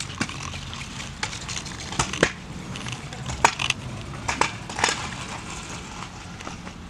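Torch flame playing over the desk's wood with a steady rushing background and irregular sharp crackles and snaps, several louder ones about 2, 3.5 and 5 seconds in.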